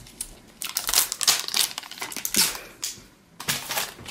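Crinkly plastic wrapping on an LOL Surprise Confetti Pop ball being handled and picked at by fingers, crackling in irregular bursts with a short lull near the end.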